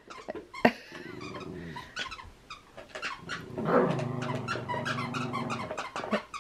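Miniature schnauzer growling in play while tugging and mouthing a toy: a short low growl about a second in, then a longer, louder growl from about halfway that stops just before the end, with sharp clicks scattered throughout.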